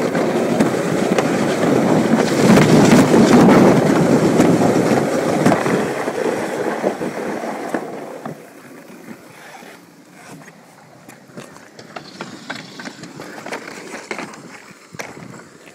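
Alpine slide sled rolling fast down the track with a loud, steady rumble. It fades as the sled slows and stops about eight seconds in, leaving scattered light clicks and knocks.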